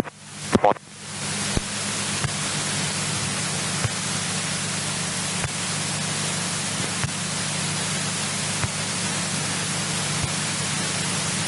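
Steady hiss with a low hum, the cabin noise of a 1964 Cessna 172E idling on the ground as heard through the headset intercom, with faint ticks about every second and a half and a brief blip at the start.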